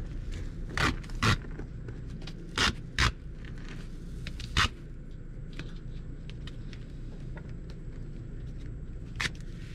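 Hands working against an RV's underbelly sheeting: a handful of short, sharp scrapes and crackles at irregular intervals, most in the first five seconds and one more near the end, over a steady low hum.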